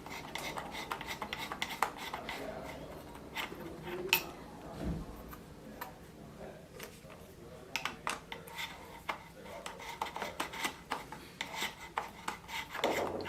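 Phillips screwdriver loosening the screws of a wheelchair arm pad, with many small irregular metal clicks and light scraping as the screws turn and the hardware is handled.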